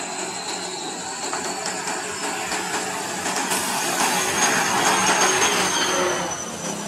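Ashok Leyland diesel bus driving past close by, its engine and tyre noise swelling to a peak about four to five seconds in and then easing, with a thin high whine slowly falling in pitch.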